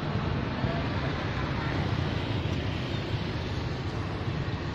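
Steady low rumble and hiss of outdoor background noise, with no distinct event standing out.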